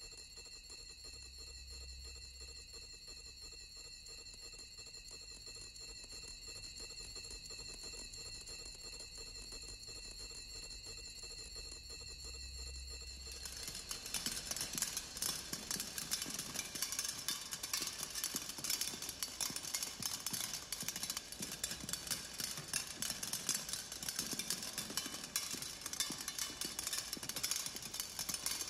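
Ambient electronic dance score. It begins with sustained high drones over a low, slowly pulsing hum. About halfway through it gives way to a louder, dense crackling noise texture.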